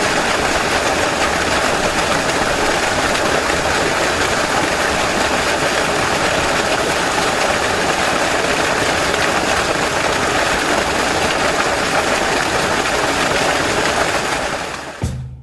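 Fast-flowing water rushing steadily in a dense, even wash of sound, fading out near the end.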